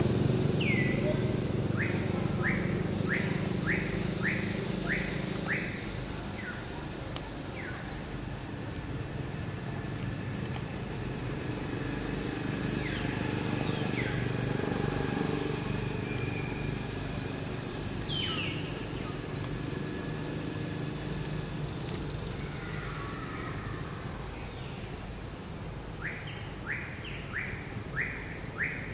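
Forest ambience: birds calling, with a run of about seven short falling whistles a couple of seconds in and another run near the end, scattered high chirps and a few longer sweeping calls between. Under them a low rumble fades away over the first several seconds.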